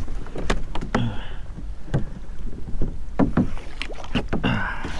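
Irregular knocks and clatter on a plastic fishing kayak as a landing net holding a freshly caught redfish is hauled aboard, with short swishing noises in between.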